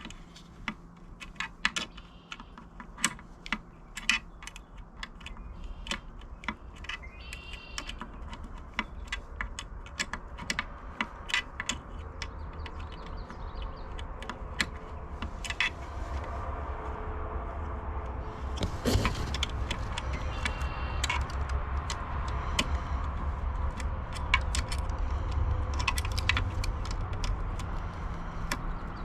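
Small metal hardware and hand tools clicking and clinking in scattered, irregular taps, with a couple of brief metallic rings, as screws are fitted by hand. A low rumble builds from about halfway through.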